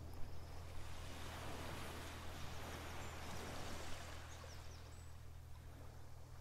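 Steady wash of sea water like gentle surf, over a constant low hum, with a few faint short high chirps in the middle.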